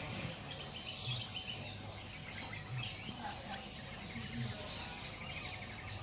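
Caged small birds chirping and twittering faintly together, over a low steady hum.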